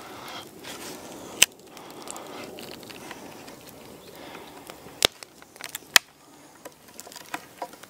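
Knife carving the end of a green wood stick, the blade shaving and prising out sections between cut grooves to form a channel. Three sharp clicks or snaps stand out: one about a second and a half in, and two close together near the end.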